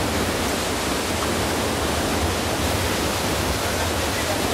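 Rushing water, a steady even noise with no let-up.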